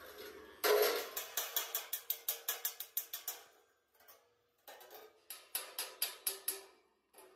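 Hammer tapping a sheet-steel panel over a steel die block: a quick run of ringing metal strikes, about six a second, for two to three seconds. After a short pause a second run of strikes follows.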